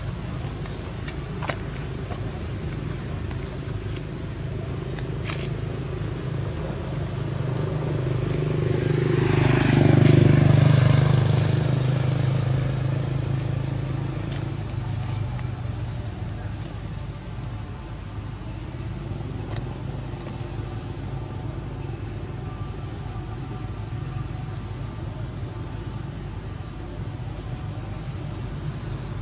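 A motor vehicle passes on the road. Its engine and tyre noise grow louder, peak about ten seconds in with a falling pitch as it goes by, then fade away.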